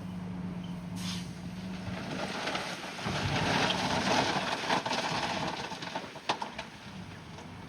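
Heavy diesel engine running steadily, then a louder stretch of rough grinding, scraping noise with a few sharp knocks in the middle.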